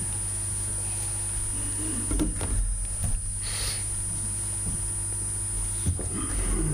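A man's footsteps and a few knocks as he reaches a wooden lectern and settles at its microphone, with a short rustle about three and a half seconds in and a sharp click near the end. Underneath, a steady electrical hum with a high whine.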